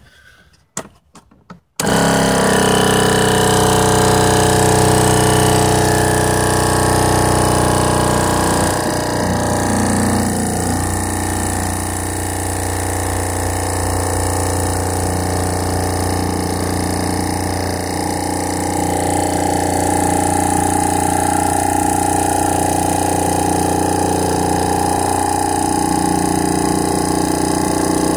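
Porsche-branded portable tyre air compressor: a few clicks, then about two seconds in the electric motor starts abruptly and runs on at a steady pitch, pumping.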